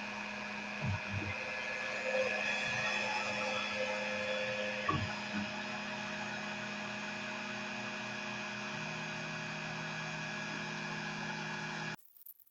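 CNC trim router's motor running steadily, turned down to a low speed setting of about 2 for a finishing pass, a steady hum with a few faint knocks early on. The sound cuts off abruptly near the end.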